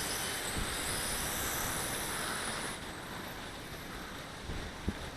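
Strong gusty wind rushing over the microphone, louder in the first half and easing a little after about two and a half seconds, with one short tap near the end.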